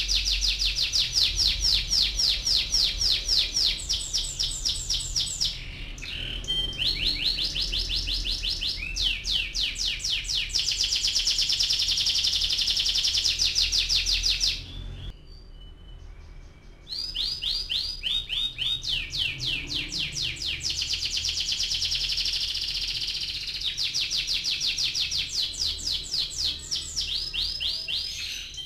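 Domestic canary singing long rolling trills: fast runs of rapidly repeated high notes, phrase after phrase, with a pause of about two seconds near the middle.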